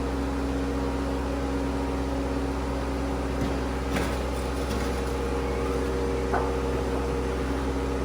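Skid steer engine running at a steady speed with an even mechanical hum, and a few light clicks or knocks about halfway through.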